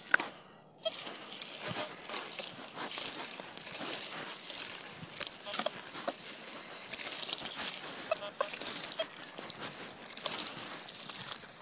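Dry straw stubble crackling and rustling under footsteps and the sweeping metal detector coil, a dense run of small crunches over a steady high hiss.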